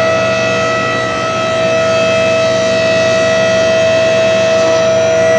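Vehicle lift's hydraulic pump motor running with a loud, steady, high whine as the car is raised.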